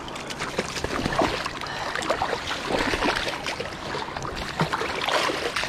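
River water splashing and sloshing in an irregular run of small splashes, as of someone wading through the shallows.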